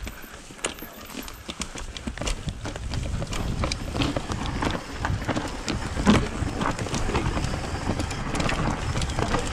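Mountain bike rolling down a dry, steep dirt trail: tyres rumbling over the dirt with frequent sharp clicks and rattles from the bike, getting louder over the first few seconds as speed builds.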